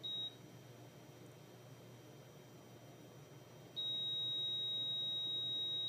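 Heart rate monitor sound effect playing: one short high-pitched beep, then a few seconds later the same high tone comes back and holds long and unbroken.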